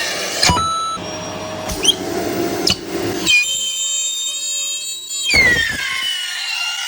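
Vacuum cleaner running with a high-pitched motor whine that shifts abruptly several times and drops in pitch about five seconds in.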